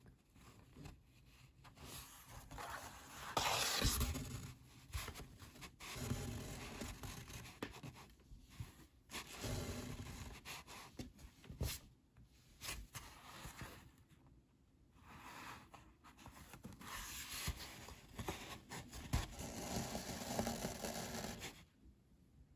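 Linen bookbinding thread drawn through and around the folded paper signatures of a hand-sewn sketchbook, a rasping rub of thread against paper, with some paper handling. It comes in several separate pulls, the longest near the end.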